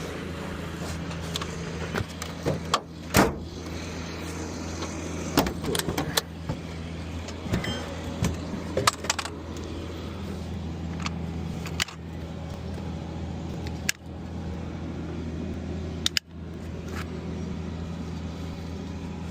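Vehicle engine idling steadily under scattered sharp metal clanks and clinks of scrap metal being handled and dropped.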